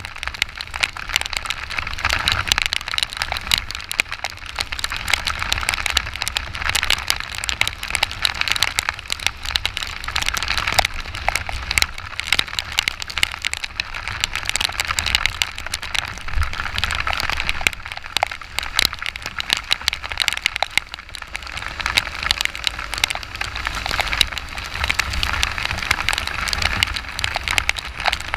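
Heavy rain hitting a camera on a moving motorcycle: a dense, steady crackle of drop impacts over a low rumble.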